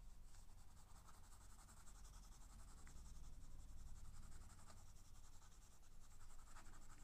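Faint, soft scratching of a graphite pencil shading across drawing paper, over a low steady hum.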